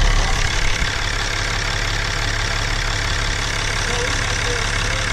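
Cummins 6.7-litre inline-six turbo diesel of a 2015 Ram 2500 idling steadily, heard close in the engine bay, with a freshly installed water pump turning as the engine warms up after a coolant refill.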